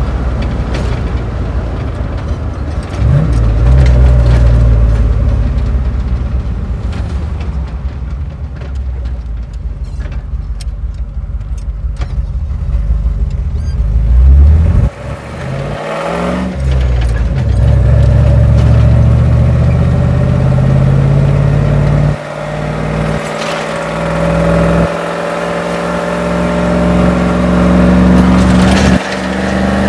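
A 1978 Ford F350's 351 Cleveland V8 heard from inside the cab, pulling the truck along and climbing in pitch as it accelerates. The note drops sharply several times as the driver shifts the manual four-speed gearbox.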